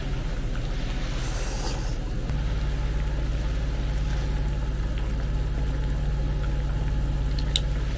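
Steady low mechanical hum, engine-like, that gets louder about two seconds in and then holds steady.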